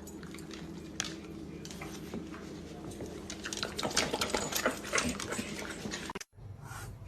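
A dog making a run of quick, short sounds over a steady low hum, growing busier about halfway through and breaking off suddenly near the end.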